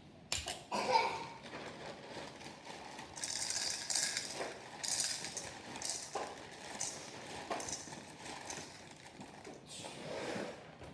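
Dry breakfast cereal pouring from a box's plastic inner bag into a bowl, with the bag crinkling and rustling unevenly. There are a couple of knocks about a second in.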